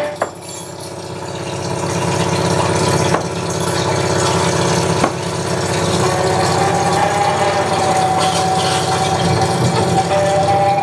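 Live electronic drone music played on tabletop electronics: a dense, steady mass of layered tones over a low rumble, swelling in loudness over the first few seconds. Three sharp clicks cut through it, and a higher held tone comes in about halfway.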